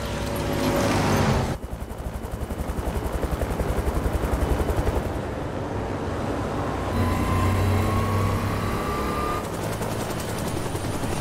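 Helicopter sound in a film soundtrack. A rumble of debris gives way to a rapid, even rotor beating of about seven pulses a second. Then a low hum follows, with a thin whine rising slowly.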